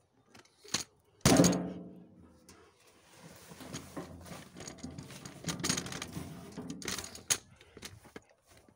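Steel wheelbarrow tub struck with a loud metal clang that rings and fades over about a second. It is followed by several seconds of rattling and knocking with a few sharper knocks.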